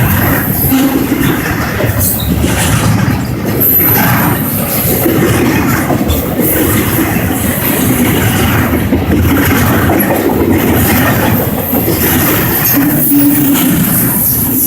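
Norfolk Southern freight train's cars rolling past close by: a loud, steady rumble and clatter of wheels on rail, with a brief high wheel squeal about four seconds in.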